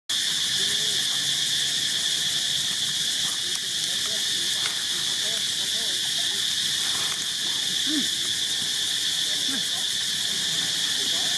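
A steady, high-pitched buzzing insect chorus that holds level throughout, with a few faint short chirps beneath it.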